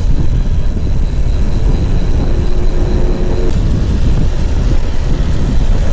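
Wind rumbling over an action camera's microphone while riding a bicycle, a steady low buffeting; a faint steady tone sits under it from about two seconds in for a second and a half.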